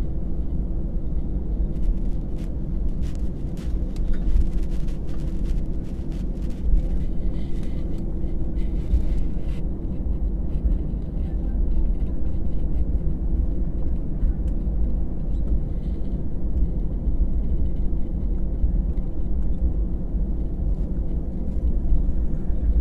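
Cabin noise inside an Airbus A319-112 taxiing: a steady low rumble of the CFM56 turbofans at idle, with a steady hum over it. Scattered light clicks and taps through the first ten seconds or so.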